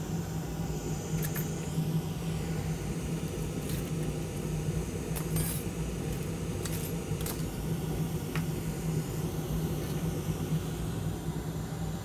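Hot air rework station blowing steadily at 500 °C onto a logic board, a low hum under an even rush of air, while metal tweezers click against the headphone jack a few times. The jack is still not coming free: the board soaks up the heat.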